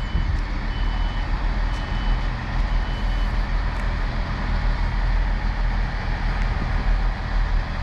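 Steady low rumble of a Class 158 diesel multiple unit's engines as the train pulls out. A faint high beep sounds about once a second over the first few seconds.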